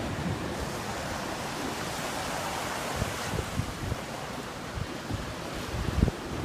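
Surf washing on the shore as a steady hiss, with wind buffeting the microphone in low gusts that grow stronger near the end.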